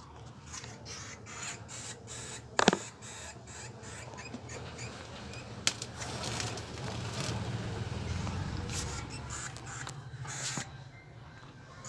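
A rat squeaking and scuffling as a cat attacks it: a run of short scratchy clicks and rustles, with two sharp, loud sounds about two and a half and five and a half seconds in.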